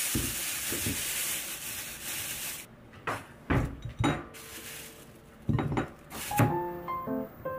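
Kitchen handling sounds: a steady hiss, then several separate knocks and clatters of dishes and cookware being set down and moved. Soft piano-like background music comes in near the end.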